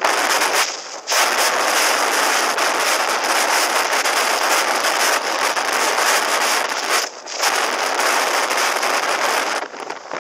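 Wind buffeting a helmet-mounted camera microphone on a motorcycle at road speed: a loud, steady rushing hiss that briefly drops away three times, about a second in, about seven seconds in and near the end.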